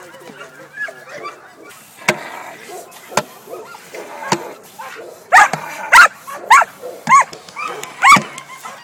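Donovan Pinscher barking at a decoy's agitation during protection work, a quick series of about six loud barks starting about five seconds in. Before the barking, a few sharp cracks.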